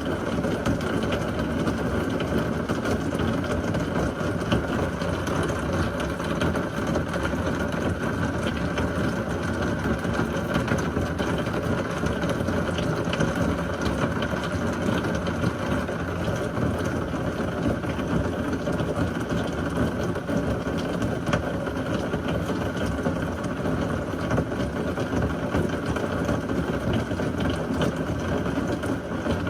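Heavy thunderstorm rain pouring steadily, an even rushing noise with fine pattering ticks.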